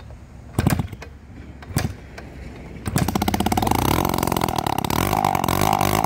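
Two-stroke engine of a vintage Kawasaki MT1 minibike being kick-started for its first start, with no choke and no exhaust pipe fitted: two loud short bangs as it is kicked, then it catches about three seconds in and runs with a rapid, loud open-port crackle, its speed rising a little about a second later.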